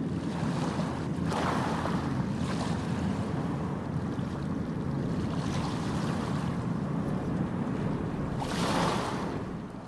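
Wind blowing across the phone's microphone: a steady low noise that swells in gusts about a second in and again near the end.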